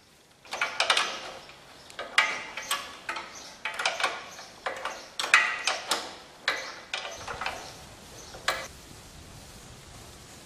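Steel parts of a 9-ton log splitter clanking and rattling as they are handled and fitted: a run of irregular metallic knocks with short ringing, then one last knock after a short pause.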